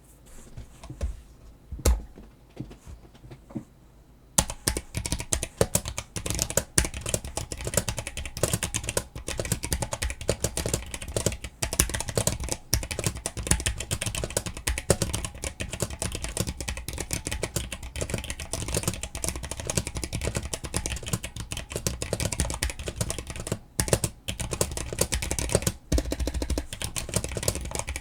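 Typing on a stock, unmodified Drop CTRL mechanical keyboard with Halo True tactile switches, assumed unlubed, and untuned stabilizers. A few separate keystrokes at first, then fast continuous typing from about four seconds in, with the spacebar and other keys clacking. The owner hears annoying amounts of pinging and an ugly-sounding spacebar.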